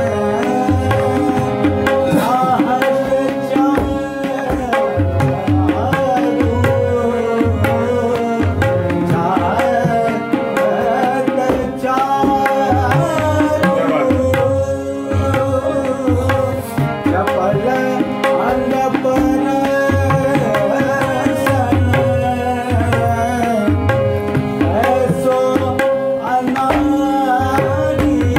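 Classical Kumauni Holi song in raag Jangla Kafi: a harmonium holding and moving between steady notes, with tabla keeping a regular beat underneath and a man's voice singing a melodic line over them.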